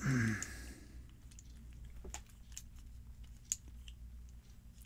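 Faint, scattered small metallic clicks as a plug follower is worked through a brass lock cylinder to gut it, after a brief falling vocal groan at the start.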